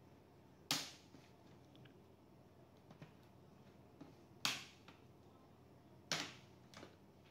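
Three sharp clicks, spaced a few seconds apart, with a few fainter ticks between them, from hands and tools working on a laptop's plastic case and parts.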